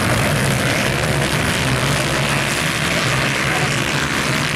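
A pack of Honda CG motorcycles' single-cylinder four-stroke engines running hard together as they race on a dirt track. The engines make a loud, steady, blended drone.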